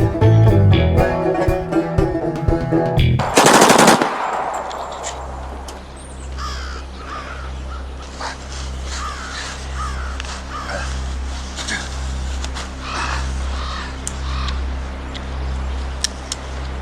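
Bluegrass banjo music, cut off about three seconds in by a short, loud burst of tommy gun (Thompson submachine gun) fire. After it, birds call over a steady low hum.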